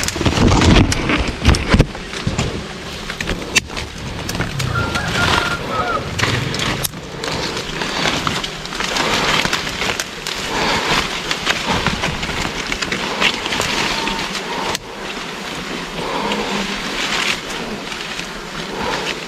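Leaves and branches rustling close to the microphone as foliage is handled and pushed aside, with many small snaps and knocks and a few short chirps.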